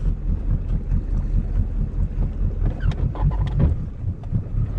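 Boat motor running at low speed while the boat is manoeuvred in forward and reverse, with wind buffeting the microphone.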